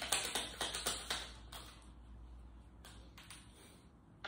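A deck of tarot cards being shuffled by hand: a quick run of soft card clicks and flicks, which thins out after about a second and a half, with a few more clicks near the end.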